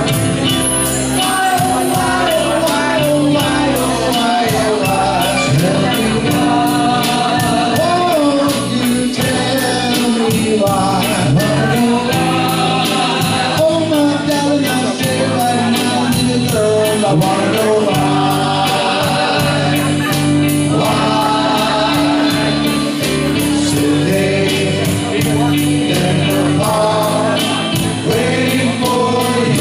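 Music with singing: wavering, sustained vocal lines over a steady bass line, playing without a break.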